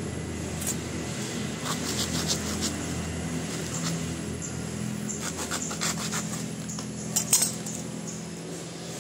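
A large knife hacking and scraping at a coconut husk in short, scratchy strokes, the fibre tearing away. Near the end come two sharp metallic knocks as the blade comes down on the concrete floor. A steady low hum runs underneath.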